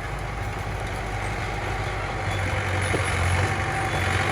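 Diesel engine of a small Komatsu bulldozer running steadily with a low hum, growing a little louder about two seconds in.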